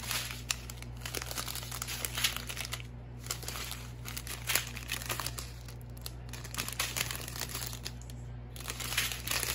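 Clear plastic strips of small diamond painting drill bags crinkling as they are handled and spread out by hand, in irregular crackles.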